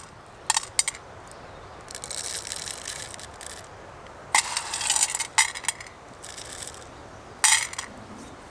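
Small hard objects clinking and rattling: two short clicks, then two longer stretches of scraping rattle, and a sharp clink near the end.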